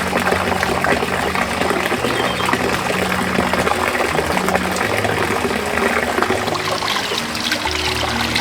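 Water running and trickling steadily, with soft background music of held low notes underneath.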